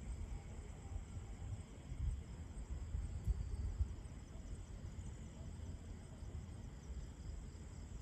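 Night-time outdoor ambience: uneven low rumbling gusts of wind on the microphone, with faint, steady high insect chirping underneath.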